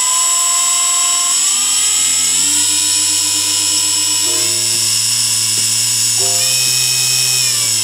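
CNC 1610 router's small DC spindle motor running while its speed is adjusted from the control software: its whine jumps up in pitch in steps, about three or four times.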